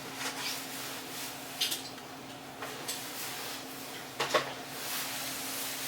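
Scattered light knocks and clatter of grocery items and kitchen things being handled and set down while groceries are put away, a few separate strikes over a faint steady hum.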